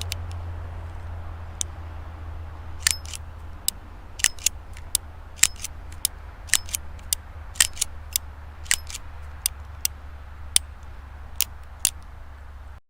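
Colt M1873 Single Action Army revolver's action clicking: about twenty sharp metallic clicks at irregular intervals, over a steady low hum.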